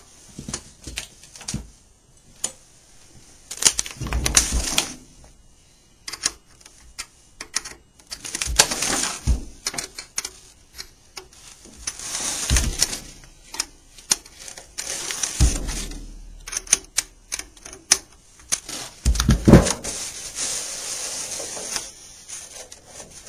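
Wrench clicking and knocking on a banjo's tension-hook nuts as they are tightened one after another around the rim, in irregular clicks, with stretches of rubbing as the banjo is handled and turned.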